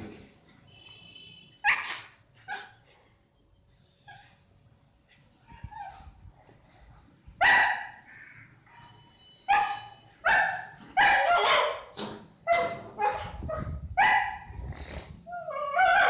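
Kanni dog barking in short, sharp barks at a rat: a few scattered barks at first, then coming thick and fast through the second half.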